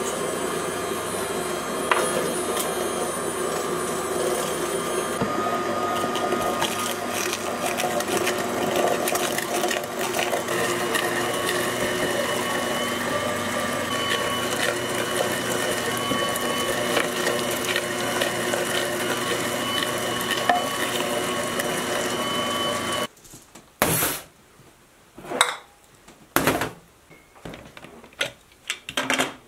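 Electric meat grinder motor running steadily as meat and vegetables are fed through. About three-quarters of the way in it stops suddenly, and a few sharp knocks and clinks follow.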